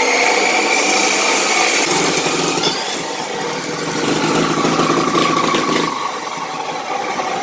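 Abrasive chop saw with its motor whining at speed as the cut-off wheel grinds through steel square tubing, a harsh hiss lasting about two seconds. After that the blade is raised and the whine runs on, its pitch slowly dropping.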